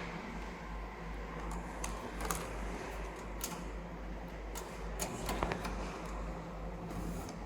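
A few scattered clicks of keys on a computer keyboard, at irregular intervals, over a steady low hum.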